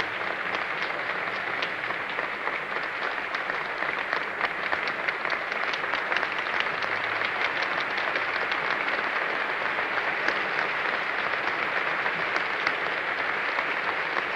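Audience applauding steadily: many hands clapping in a dense, unbroken spread of claps.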